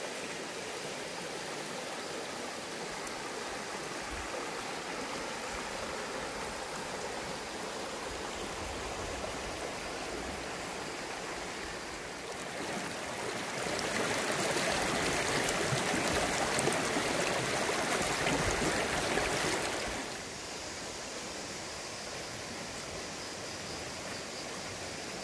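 Shallow stream running over a rocky bed: a steady rush of flowing water that grows louder for about six seconds in the middle.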